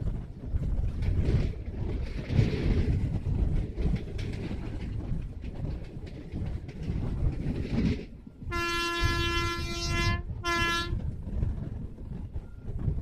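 Kerala Express passenger train running along the track, heard from aboard a coach: a steady rumble and wheel clatter. About eight and a half seconds in, the locomotive's horn sounds a long blast of about a second and a half, then a short one.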